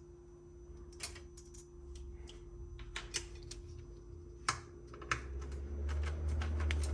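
Irregular clicks and taps of tools and metal and plastic parts being handled while a Macintosh Plus is taken apart, over a faint steady hum. A low rumble swells from about five seconds in.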